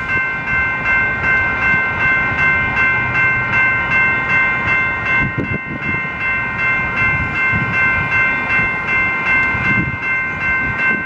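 Railroad crossing electronic bells (General Signals and Western Cullen Hayes Type 2) ringing steadily at about two dings a second, the crossing still activated.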